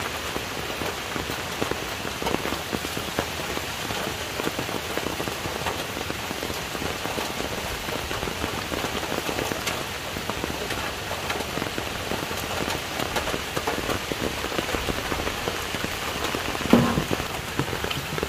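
Steady rain falling and pattering on surfaces, with a single thump near the end.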